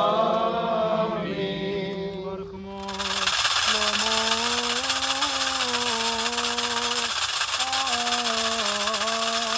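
A man chanting a liturgical hymn in long held notes, over continuous rapid metallic jingling that drops out briefly about two seconds in and starts again at three seconds.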